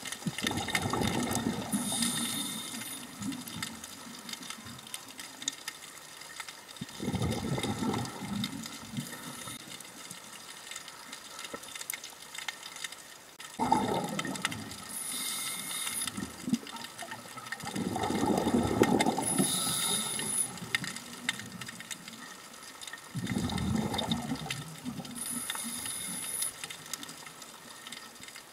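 Scuba diver's breathing through a regulator underwater. Exhaled bubbles rush and gurgle past the microphone in five bursts about every five seconds, with a short high hiss from the regulator between them.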